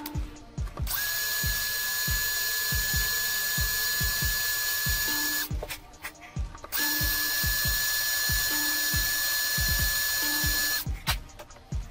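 Drill boring out a brass anti-tamper cap in an air rifle's action block, a steady high whine that stops about five and a half seconds in, starts again a second and a half later, and stops again near the end as the bit is lifted clear. Frequent light clicks run throughout.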